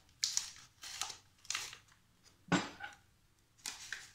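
Kitchen utensils being handled at a countertop: a series of short rustles and light clicks, with one louder knock about two and a half seconds in.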